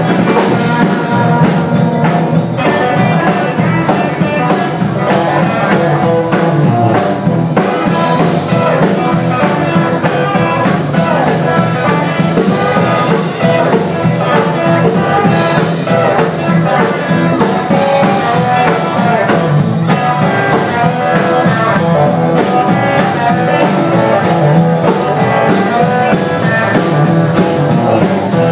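A live rock-and-blues trio playing: electric guitar, electric bass and drum kit, steady and loud.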